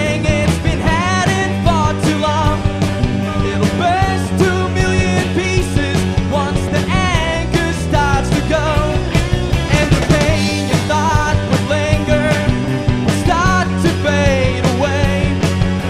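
Live rock band playing loud: a male lead singer singing into the microphone over electric guitar, bass and a steady drum beat.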